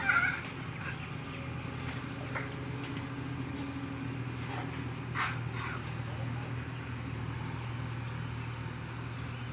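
A steady low motor hum, with a few short high-pitched sounds at the start, about two seconds in and about five seconds in.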